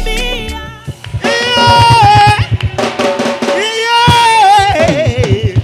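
Music: a drum kit playing a fast run of low strokes under long held melody notes, which slide downward near the end.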